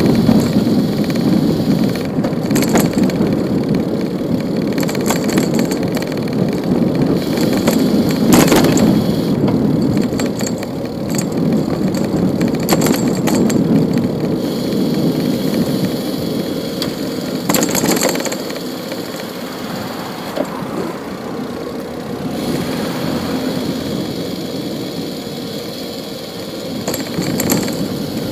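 Continuous rolling road noise from a bicycle ride along a city street, mixed with car traffic, with a few sharp clicks and rattles at intervals.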